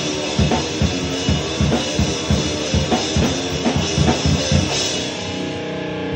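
Instrumental rock music: a drum kit with steady kick-drum hits and cymbals over sustained guitar chords. About five seconds in the drums stop and the guitar chords ring on alone.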